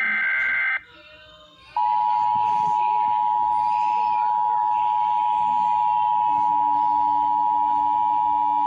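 Emergency Alert System broadcast tones announcing a severe thunderstorm warning. The last burst of the SAME digital header, a rapid warbling data tone, cuts off about a second in. Then, after a short gap, the two-tone attention signal starts: a loud, steady dual tone that holds without a break.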